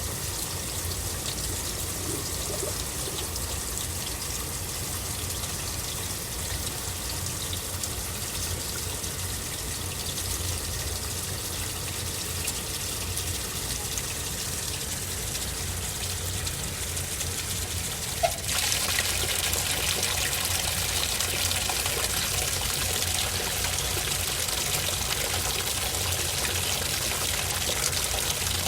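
Water running into an AQUA MCW-C70A coin-operated washing machine. About 18 seconds in there is a click, and the rush of water becomes louder and brighter.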